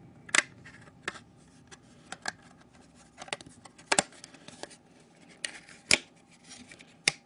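Thin plastic battery cover of a Samsung Galaxy S2 being prised off by hand: a scattered series of sharp plastic clicks and snaps as the clips give, the loudest about four and six seconds in.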